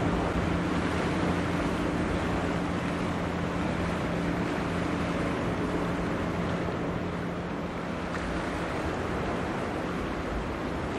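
Steady rush of wind and water, with the low, steady hum of a passing cargo ship's diesel engine that fades out about eight seconds in.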